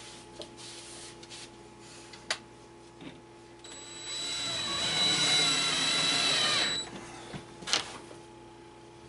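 A handheld power drill runs once for about three seconds, with a steady high whine and a pitch that wavers. A sharp click follows near the end.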